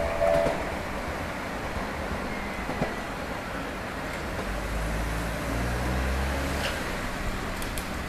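Japanese railway level-crossing alarm bell's two alternating tones cut off about half a second in, the signal that the crossing is opening after a train. From about four and a half seconds in, a car's engine runs low as it drives across the crossing for about two seconds, and a few light clicks follow near the end.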